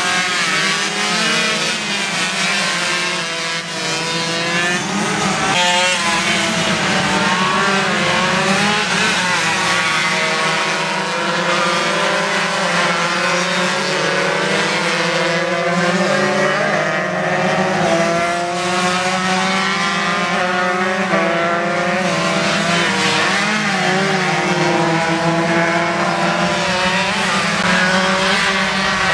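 Several 125cc underbone racing motorcycles running at high revs, their engine notes rising and falling in overlapping whines as the riders accelerate, shift and brake through the corners.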